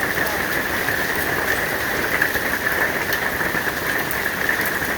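Hailstorm: hail and rain falling steadily, a dense patter of many small hits.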